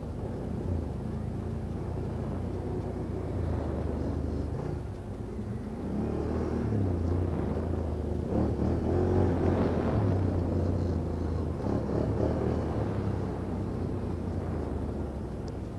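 Off-road vehicle engine running under load, its revs stepping up and down repeatedly, loudest around the middle.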